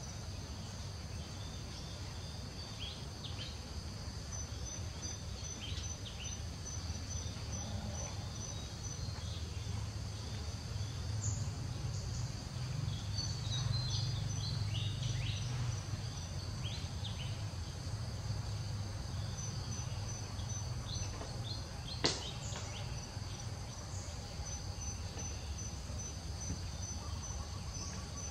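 Steady high-pitched insect trilling, one strand pulsing rapidly, over a low rumble, with scattered short chirps and a single sharp click a little after the twenty-second mark.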